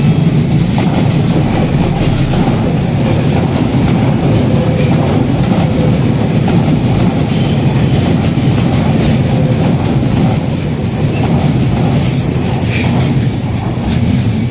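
Train passing close by at a level crossing, its wheels knocking steadily over the rail joints.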